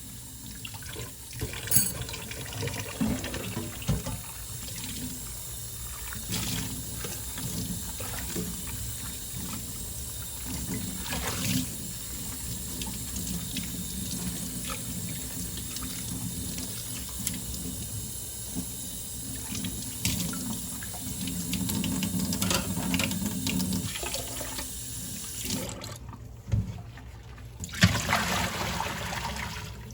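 Kitchen tap running into a sink while dishes are washed by hand, with occasional clinks and knocks of dishes. Near the end the water stops for a couple of seconds, then comes back on.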